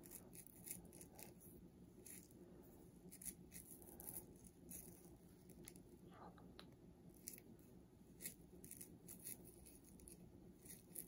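Near silence with faint, irregular scratchy rustles and ticks of coarse curly hair being worked with a triple-tip crochet needle and fingers.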